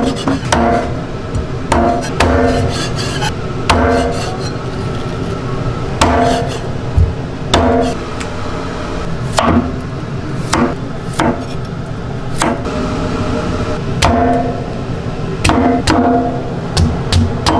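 A cleaver chopping through raw chicken and then through corn cobs on a cutting board. The chops come at an irregular pace, hard and sharp, and many carry a brief ring from the blade.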